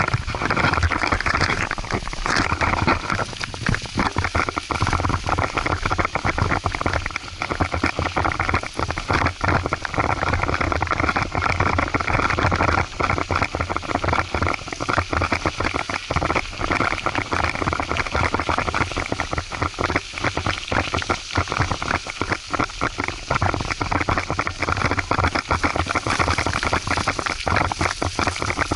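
Wind buffeting and rattling on a mountain bike's action camera as it rides over a rough gravel and mud road: a dense, constantly fluttering noise with no let-up.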